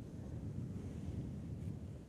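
Steady low rumble with faint hiss: the microphone's noise floor, like light wind or air on the microphone.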